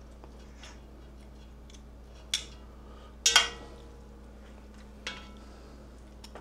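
Metal tongs clinking against a red enamelled Dutch oven as a braised beef roast is pulled apart in it. There are three sharp clinks, at about two and a half, three and a half and five seconds in; the middle one is the loudest and rings briefly.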